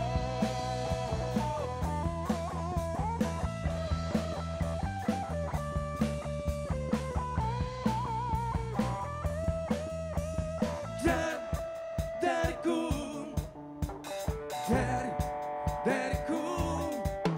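Live rock band playing: a drum kit keeps a steady beat under electric bass, with a lead line of bent, wavering notes on top. About eleven seconds in, the steady bass and beat break off into sparser accented hits and held chords.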